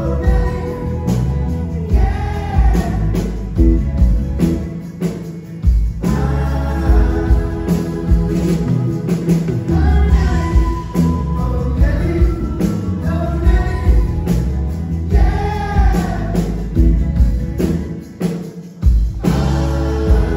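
Live rock band playing a song: sung vocals over electric bass, acoustic guitar and a drum kit, with steady drum hits.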